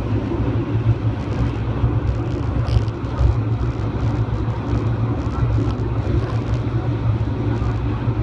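Local passenger train running steadily, a constant low rumble of its engine and wheels on the rails.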